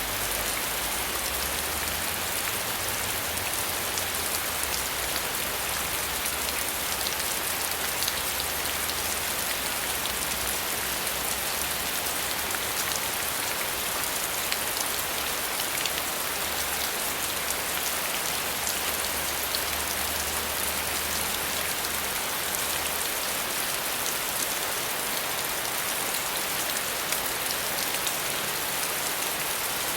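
Steady rain falling: a dense, even hiss of rain on a surface, with individual drops ticking through it.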